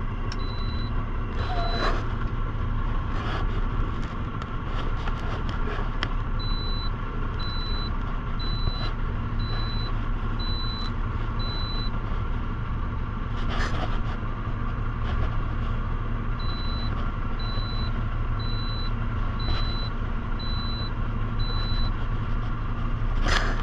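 Truck engine idling steadily while a reversing alarm beeps in three runs, about one beep every three-quarters of a second, with a few scattered knocks.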